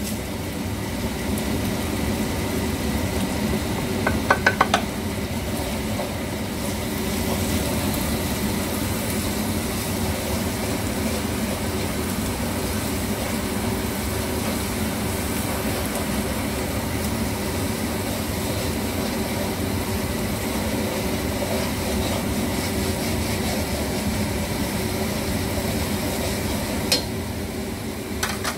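Chopped onions and whole rice spices sizzling in hot oil in an aluminium pot, stirred and scraped with a wooden spatula. A few quick taps come about four seconds in, over a steady hum.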